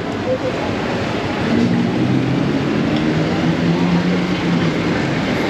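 Traffic on a busy city street: vehicle engines running, with a low engine hum that comes up about a second and a half in and holds steady.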